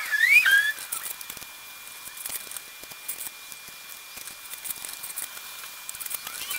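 Hand-cranked Harbor Freight tubing roller squeaking as it rolls steel tubing: a few short squeals that slide up and down in pitch near the start, then faint irregular ticking and creaking as the crank keeps turning.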